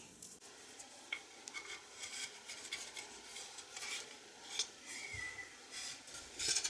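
Wooden furniture parts being handled and fitted into pre-drilled holes: scattered light taps, clicks and rubbing, with a brief squeak about five seconds in.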